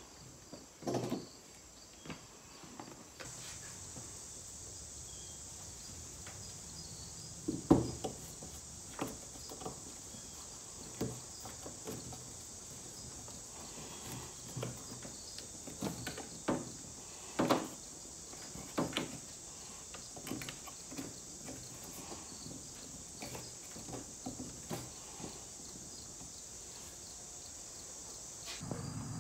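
Scattered light knocks and clicks of hands fitting and adjusting a Humminbird fish finder on its plastic gimbal and RAM mount, over a steady faint high hiss.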